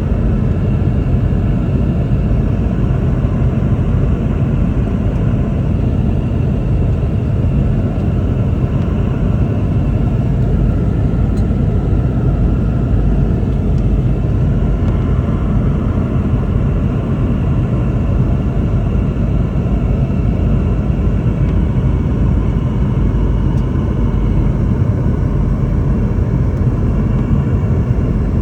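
Steady cabin noise inside a Boeing 717-200: a deep rumble of airflow and its two rear-mounted Rolls-Royce BR715 turbofans, with a faint steady whine above it.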